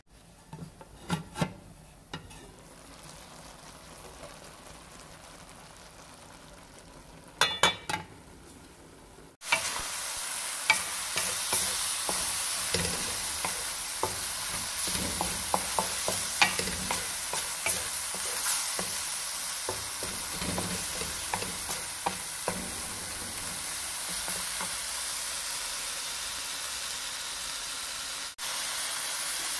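Spinach, onion and tomato frying in oil in a metal pot: steady sizzling with a wooden spatula stirring and scraping through it. For the first nine seconds, while the lid is on over low heat, it is much quieter, with a few sharp clicks about a second in and again near eight seconds; the loud sizzle and stirring start abruptly after that.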